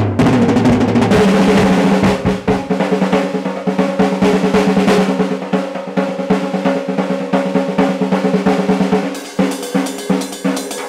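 Acoustic drum kit played solo: a fast, dense roll with the drums left ringing underneath, breaking about nine seconds in into sharper, separate strokes.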